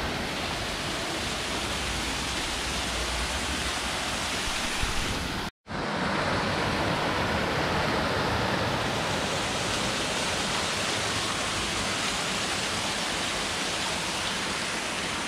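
Water spilling over small stone-walled cascades in a stream channel, a steady rushing splash. It cuts out abruptly for a split second about five and a half seconds in, then goes on as before.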